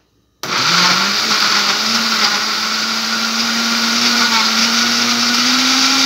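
Walita Roma 325 W blender switched on about half a second in: the motor spins up within a second, then runs steadily and loud, blending papaya pulp with hard ice cream, its pitch creeping slightly higher as it goes.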